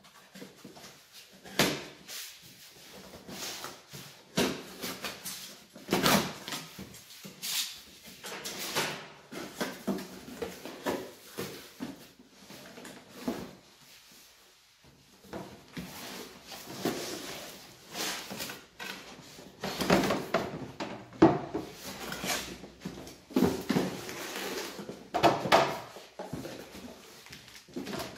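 Handling of a chainsaw's shipping box and packaging: irregular rustles, knocks and scrapes as it is opened and the contents are taken out.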